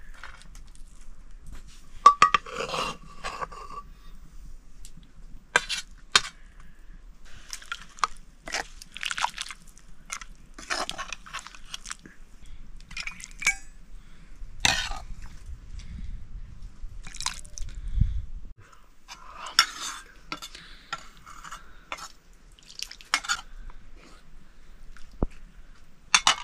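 Metal cooking pots and utensils clinking, knocking and scraping at irregular intervals while food is cooked. About halfway through, a low rumble runs for a few seconds.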